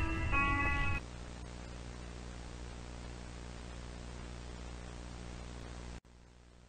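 A tune of pitched notes cuts off about a second in, giving way to a steady electrical hum with static hiss; near the end the hum drops out, leaving only faint hiss.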